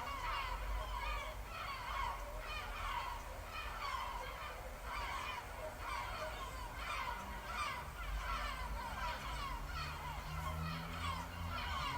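Recorded seagull soundscape: many gulls calling over and over, each call falling in pitch, over a steady low rumble.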